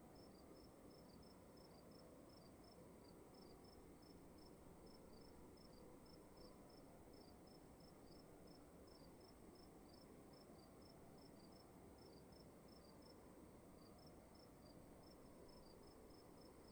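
Faint crickets chirping in quick, evenly spaced pulses, with a steady high trill above them, over a quiet room hiss.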